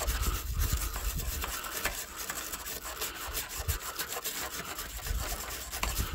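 A hand tool scraping in quick, irregular strokes inside a bolt hole in a car's sheet-metal front panel, breaking up old paint and grime packed in the hole.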